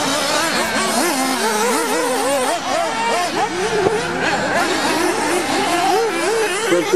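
Several nitro-powered 1:8 off-road RC buggy engines buzzing at once, their high-pitched notes rising and falling over each other as they rev and ease off.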